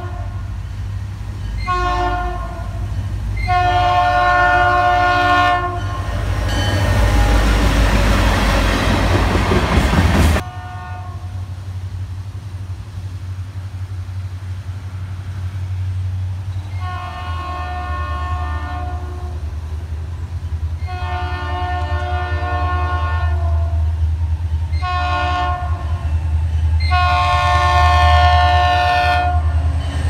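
Diesel locomotive air horns: three blasts followed by a loud rushing noise that cuts off abruptly about ten seconds in. Then, over a steady low engine rumble, a Florida East Coast Railway locomotive sounds the grade-crossing signal of two long blasts, one short and one long, warning that it is approaching the crossing.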